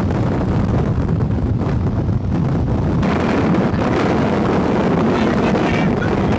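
Storm wind buffeting the microphone over the steady rumble of a vehicle on the road. The noise grows harsher and hissier about three seconds in.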